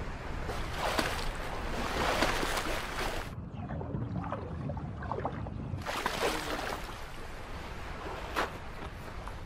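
Sea water splashing and washing at the edge of the sea ice, in two surges with a quieter stretch between, and a short sharp splash or knock near the end.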